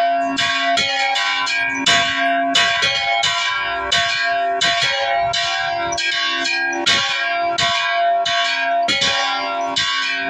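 Church bells rung in a fast repique: several bells struck in quick rhythmic succession, about three to four strikes a second, their tones ringing on and overlapping.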